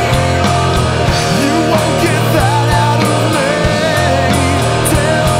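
Rock song playing: a full band with a steady bass line and regular drum hits, and a wavering melody line coming in over it about two seconds in.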